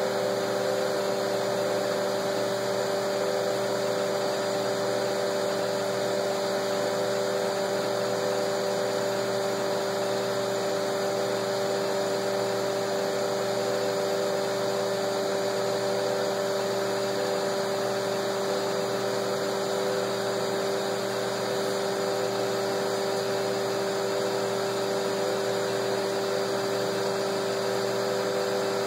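Hot-air rework station blowing hot air through its nozzle onto a circuit board, reflowing the solder under a VQFN chip. The sound is a steady hiss of air with a constant hum of a few tones.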